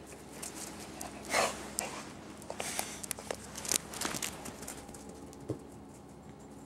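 A dog panting close to the microphone, with rustling and a few sharp clicks of handling as the fetch toy is taken and thrown, mostly between about one and four seconds in.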